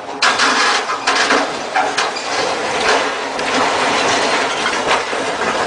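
A mobile crane toppling over on the quay and the fishing boat it was lifting crashing down into the water: a loud, noisy crash beginning just after the start, followed by repeated bangs and clattering knocks of metal and hull.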